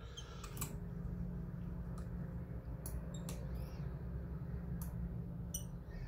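A few light, irregular metallic clicks from a Rotorpick lock-picking tool working in a Cisa Astral cylinder lock as the plug is turned a few degrees, over a steady low hum.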